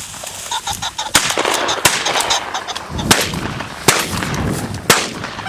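Shotgun shots: several sharp reports, roughly a second apart.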